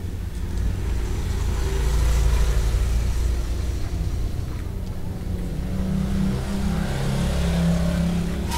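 A motor vehicle's engine running nearby: a steady low rumble that swells about two seconds in and again near the end.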